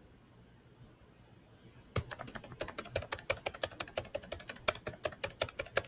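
Near silence for about two seconds, then a computer mouse clicked rapidly and steadily, several sharp clicks a second, repeatedly firing neutrons in the fission simulation.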